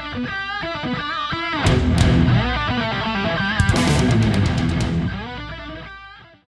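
Intro music: a rock/metal piece with electric guitar, fading out near the end.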